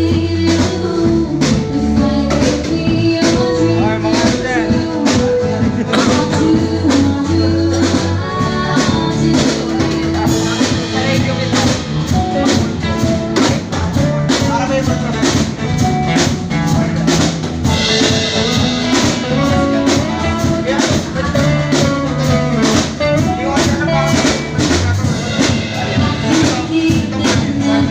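Live band playing a song at a sound check: drum kit keeping a steady beat under bass and guitar, with some singing.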